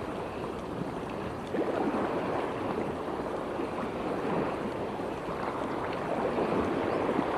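Steady wash of estuary water moving and lapping around the wading angler.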